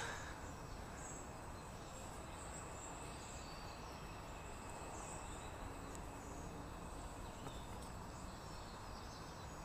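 Quiet steady background hiss with a few faint high chirps.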